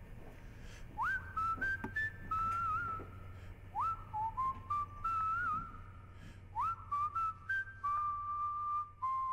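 A person whistling a short melody in three phrases, each opening with a quick upward swoop into the first note, ending on a long held note.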